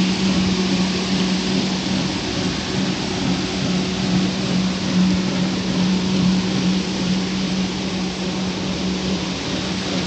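2 HP four-paddle-wheel aerator running, its paddles churning and splashing the water over a steady motor hum.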